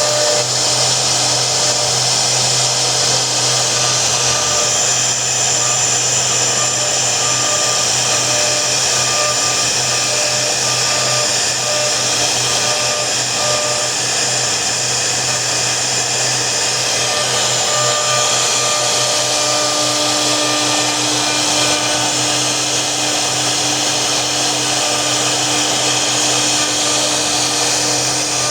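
CNC router spindle running steadily, a continuous machine whine over broad noise; a lower steady tone joins about two-thirds of the way through.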